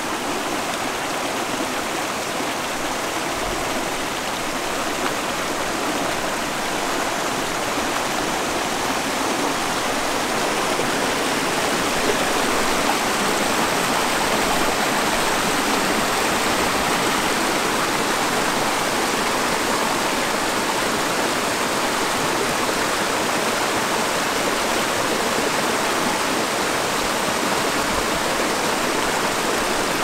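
Waterfall rushing steadily, growing a little louder over the first dozen seconds and then holding even.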